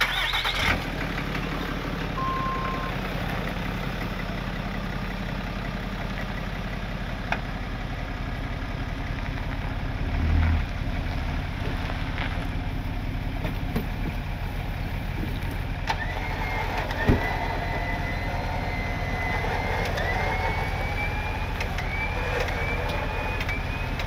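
Harbor Freight Badlands electric winch on a pickup's front bumper running under load, reeling in its line to drag a stuck van sideways, over the steady hum of the idling truck. A dull thump comes about ten seconds in. A high whine sets in about two-thirds of the way through and creeps up in pitch.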